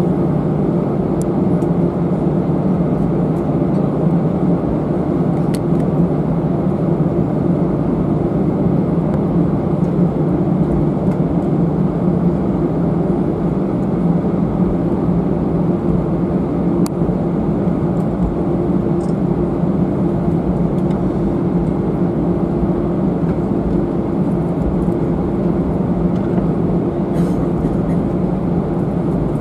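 Steady drone of engine and air noise inside the cabin of an Airbus A319-111 airliner with CFM56 turbofans, an even low rumble with a steady hum, unchanging throughout. A few faint small clicks sound in the cabin.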